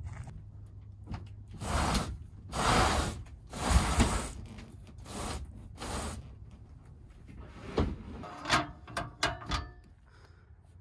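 Metal pull-out entry step of a 2006 Jayco Jay Flight 1207 pop-up camper being slid out, with a quick run of sharp clanks and scrapes near the end. Before that come several loud rushes of noise, which are the loudest sound.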